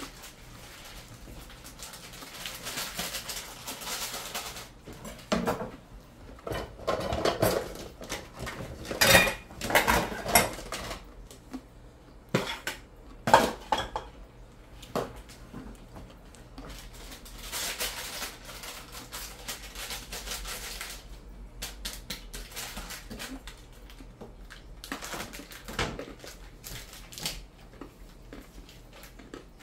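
Dishes, pots and cutlery clattering and knocking as they are handled on a kitchen counter, with a spoon scraping in a bowl. The clatters are irregular and loudest in the first half, with a couple of stretches of steady hiss between them.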